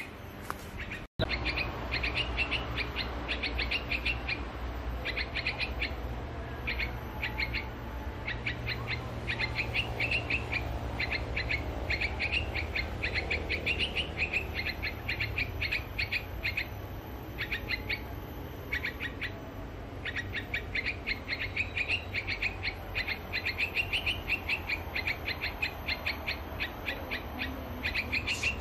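Yellow-vented bulbul chirping calls repeated in quick runs with short gaps, over a low steady rumble.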